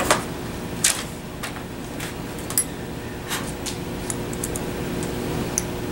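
A few short metallic clicks and taps from a small open-end wrench working the brass main jet of a carburetor, spaced irregularly over a steady background hum.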